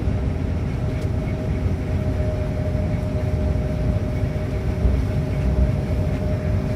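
Combine harvester running steadily, heard from inside the cab: a dense low rumble of engine and machinery with two steady hum tones held over it.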